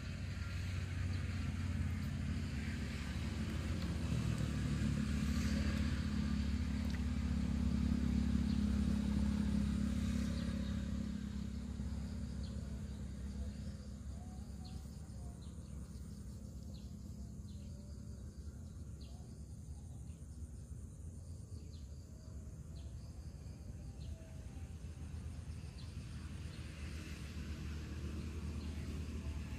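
A low engine rumble that swells over the first ten seconds or so and then fades to a quieter steady hum.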